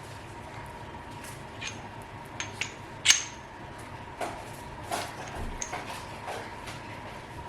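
Aluminium bearing-driver cones and the bolt of a bearing push set clinking and clicking as they are handled and fitted together: a scatter of small metal clinks, the loudest about three seconds in with a brief ring.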